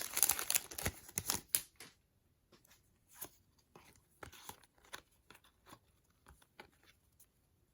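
Plastic wrapper of an NBA Hoops trading-card pack crinkling and tearing for about the first two seconds, then faint scattered clicks of the cards being flipped and handled.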